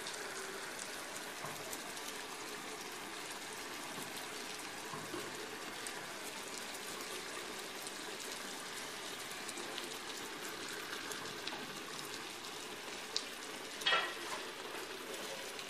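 Meat and vegetables sizzling in a clay tagine on a gas burner: a steady hiss flecked with tiny crackles. A sharp tick and then a louder knock come near the end as potato wedges are laid into the pot.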